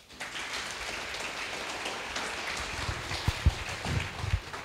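Audience applauding, a steady patter of clapping with a few low thumps about three seconds in.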